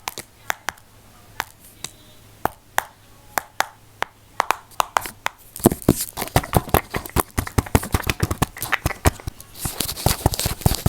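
Close-miked ASMR trigger clicks and taps: sharp isolated clicks at first, then coming rapidly and densely from about halfway through, with a breathy hiss near the end.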